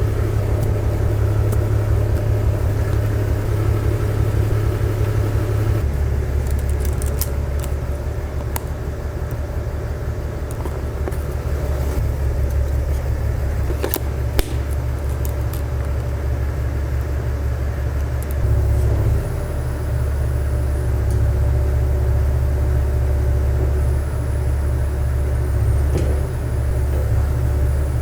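New Holland TS135A tractor's diesel engine running steadily, its low note shifting about six seconds in and again around eighteen seconds, with a few sharp clicks over it.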